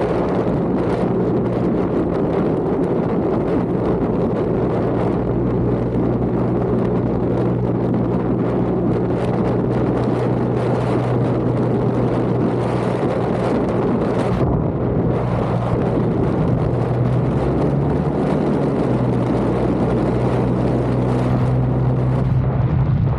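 Lexus IS 250's 2.5-litre V6 running under way: a steady low engine note over heavy wind and road noise, its pitch stepping up and down a few times near the end.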